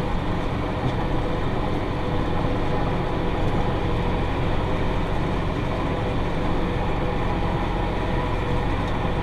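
Massey Ferguson 5610 tractor running steadily under load, pulling a John Deere 468 round baler as it picks up hay at a fast ground speed.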